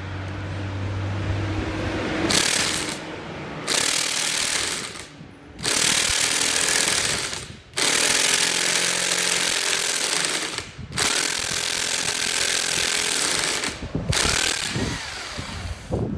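Impact wrench hammering in about six bursts of one to three seconds on a very tight bolt in a VW manual transaxle, held from turning by an engaged gear; the bolt was set with thread-locking compound.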